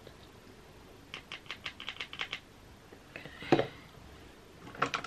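Typing on a laptop keyboard: a quick run of about ten keystrokes, then one louder knock and a couple more clicks near the end.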